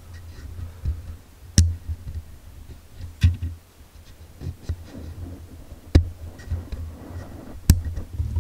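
Handling noise and kit-lens autofocus noise from a handheld Canon camera, picked up by its own built-in microphone: a low rumble with small ticks and four sharp clicks. The autofocus is really noisy on the recording.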